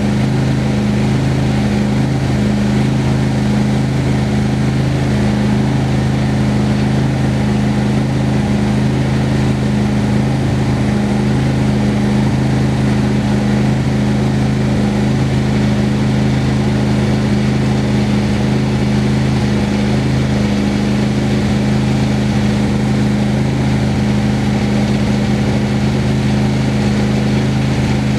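Engine of a homemade sawmill running steadily at an even speed.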